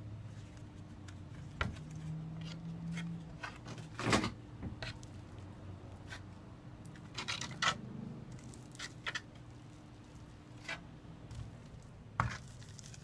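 A hand trowel scraping and tapping on a counter top spread with flooring adhesive, in short irregular strokes, the loudest about four seconds in, over a low steady hum.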